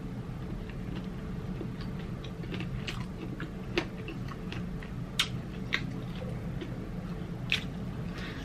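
Close-miked chewing and biting of sweet chili chicken wings: irregular wet mouth clicks and smacks, a few of them sharper and louder, over a low steady room hum.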